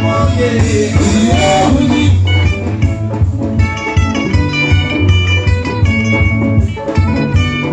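Loud band music with a steady beat and a heavy bass line.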